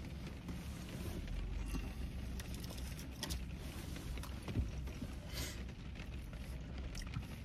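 Low steady hum inside a car cabin, with scattered soft clicks and rustles of eating: a plastic fork scraping in a paper mac-and-cheese cup, and a louder rustle about five and a half seconds in.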